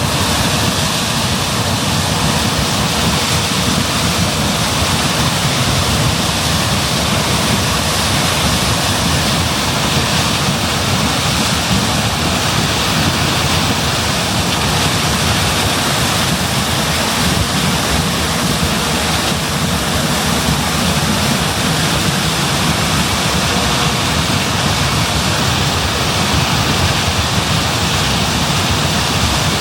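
John Deere S660 combine running steadily while harvesting corn: a dense, even rush of machine noise with a faint steady whine and no change in pace.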